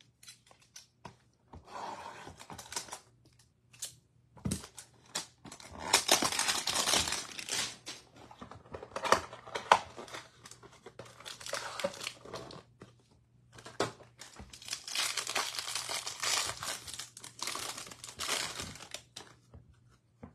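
A 2023 Topps Series 1 baseball-card hanger pack being opened: its wrapper is torn and crinkled in several stretches, with scattered clicks and taps in between.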